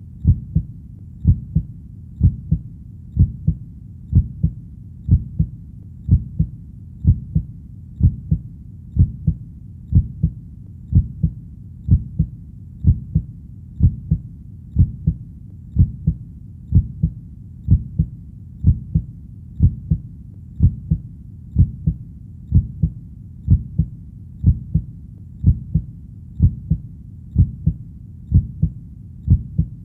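Human heartbeat, a steady lub-dub double thump about once a second, deep and low.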